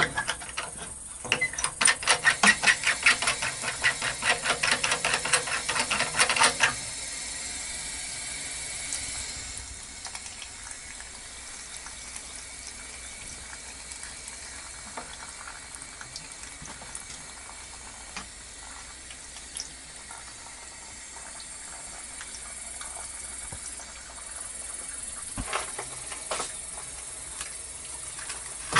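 Water running steadily from a leaking valve on a solar water heater's pipework, a constant hiss. For the first several seconds a louder, fast, regular pulsing sound lies over it and stops abruptly.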